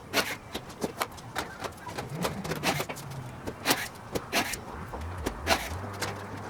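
Irregular sharp clicks and clacks of small metal parts and hand tools being handled while preparing aluminium skin and rivet holes, about two or three a second. A steady low hum joins about five seconds in.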